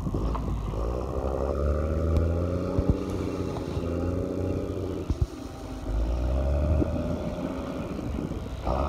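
A machine engine running steadily with a low rumble, its pitch drifting slightly up and down, with a few sharp clicks or knocks about three and five seconds in.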